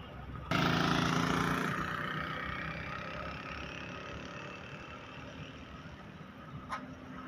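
A motor vehicle's engine running, starting abruptly and loudly about half a second in and then fading gradually over a few seconds. There is a short click near the end.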